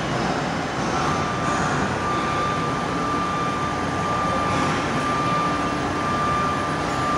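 Steady machinery drone with a constant high-pitched whine that comes in about a second in.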